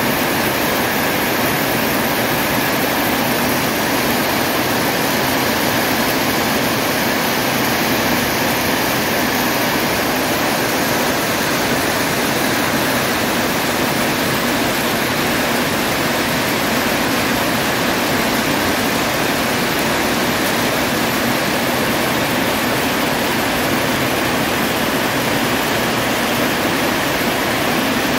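Heavy rain falling on a corrugated zinc roof: a loud, dense, steady hiss of countless drops striking the sheet metal.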